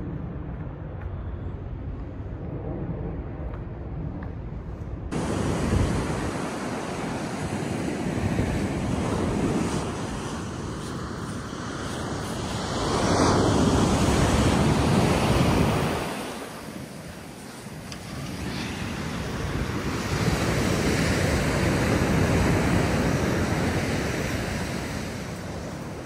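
Strong wind on a beach buffeting the microphone, over ocean surf; the wind rises and falls in long gusts, loudest about halfway through and again toward the end. The first five seconds, before a sudden cut, hold only a duller low rumble.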